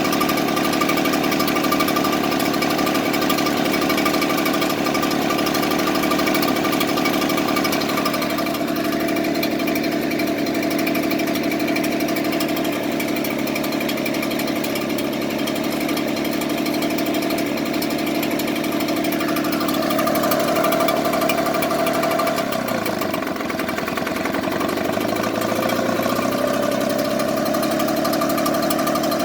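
Echo two-stroke blower engine idling roughly, its speed sagging and picking up again several times, most deeply about three-quarters through.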